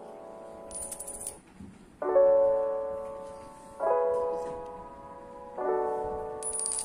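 Background piano music: chords struck about every two seconds, each fading away. A short high rattle comes about a second in and again near the end.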